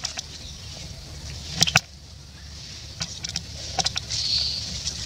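Dry leaves crackling and rustling under a baby monkey moving through leaf litter. The sharpest crackles come about a second and a half in and a few more around three seconds in, over a steady low rumble.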